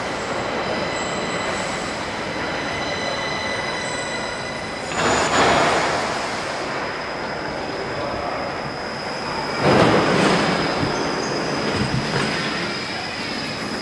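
Stockholm metro train at the platform: a steady electric whine and rumble, with several high whining tones fading out over the first few seconds and two loud rushes of noise about five and ten seconds in.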